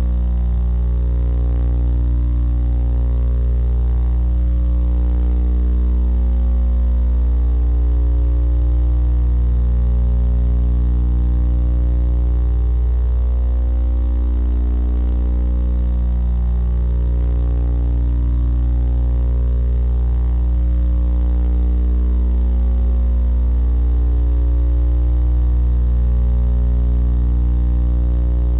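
Steady low electrical hum, a deep buzz with a stack of evenly spaced overtones, picked up on the nest-box camera's audio line.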